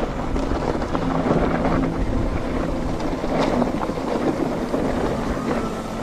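Wind rushing over the microphone with the rumble and rattle of a mountain bike riding a rough dirt trail.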